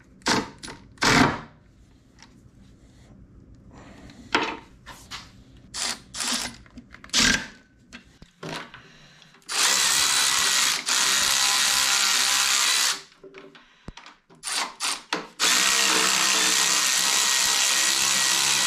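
Milwaukee cordless electric ratchet running down the engine's mounting bolts in two long spells of several seconds each, with a few short blips between. Before that, light clinks and knocks of hand tools on metal.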